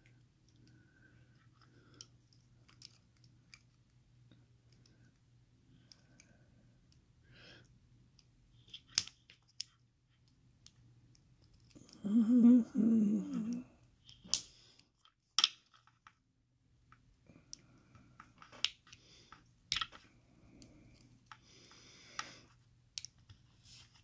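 Sparse small metallic clicks and light scrapes from a brass padlock core and a small tool being handled as the lock is taken apart. About halfway through there is a brief low voice-like sound, the loudest moment.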